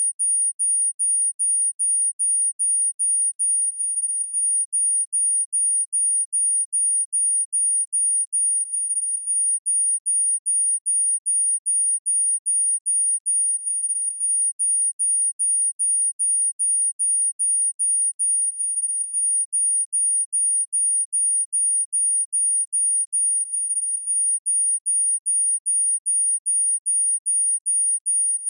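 A very high-pitched electronic beep, a single pure tone, pulsing on and off about twice a second without letup.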